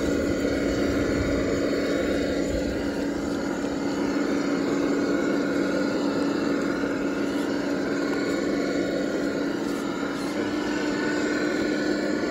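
Traxxas TRX-4 Land Rover Defender RC crawler's electric motor and gearbox whining steadily as it crawls up a slope.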